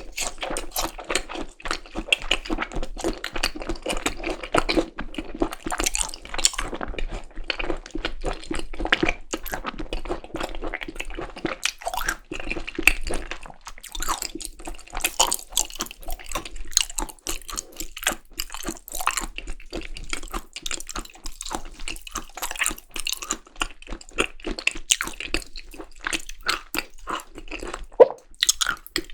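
Close-miked chewing of seasoned raw beef tartare (yukhoe): wet, sticky mouth sounds with many small clicks and smacks.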